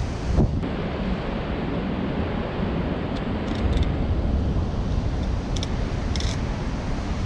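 Surf breaking on rocks and wind buffeting the microphone: a steady rushing noise, heaviest in the low end, with a short thump near the start and a few faint, brief ticks in the middle.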